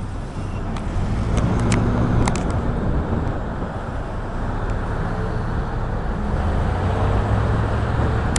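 A car driving in city traffic: steady engine and road rumble with a low hum.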